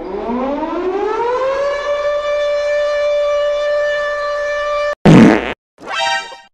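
A siren-like wailing tone that rises in pitch over about two seconds and then holds steady, cut off about five seconds in by a short, very loud noisy blast, followed by a brief high-pitched tone.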